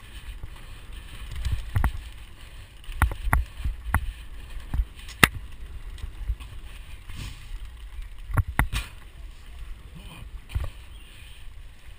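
Mountain bike clattering over a bumpy dirt singletrack: irregular sharp knocks and rattles as it hits bumps, clustered a few seconds in and again past the middle, over a steady low rumble.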